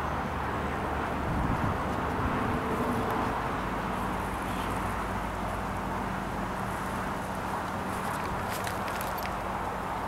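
Steady background noise with a low, even hum, and a few faint clicks near the end.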